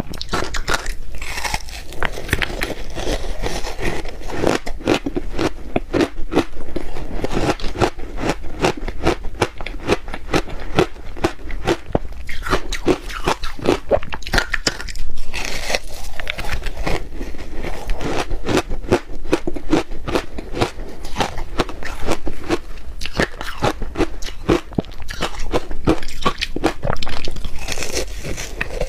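Ice coated in matcha powder being bitten and chewed: a dense, rapid run of crunches and cracks, with louder crunches about halfway through and again near the end.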